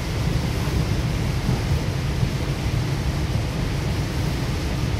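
Goninan K-set double-deck electric train running at speed, heard inside the upper-deck saloon: a steady low rumble of wheels and running gear with a fainter hiss over it.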